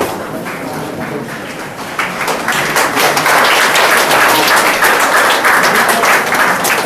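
Audience applause: a dense patter of clapping that starts about two seconds in, builds, then eases near the end.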